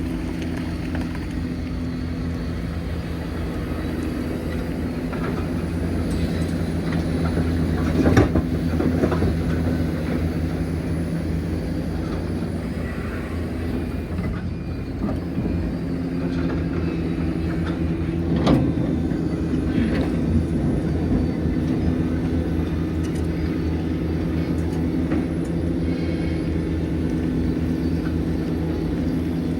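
Hitachi Zaxis 490LCH excavator's six-cylinder diesel engine running steadily under working load. Two loud knocks come through it, about eight and eighteen seconds in.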